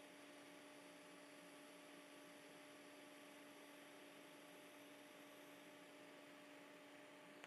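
Near silence: a faint, steady electrical hum over light hiss.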